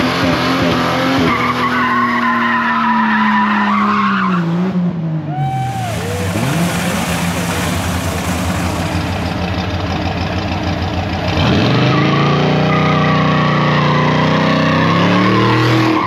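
Car engines revved hard and held at high revs, then easing off, with the hiss and squeal of tyres spinning on wet pavement in burnouts. The sound cuts from one car to another about five seconds in and again near eleven seconds.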